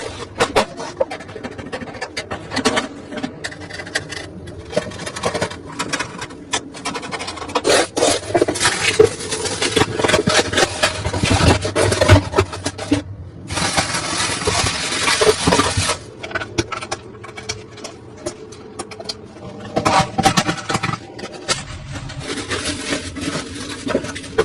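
Hands handling and fitting computer parts: repeated scraping and rubbing with many sharp clicks and knocks, and longer stretches of rubbing in the middle.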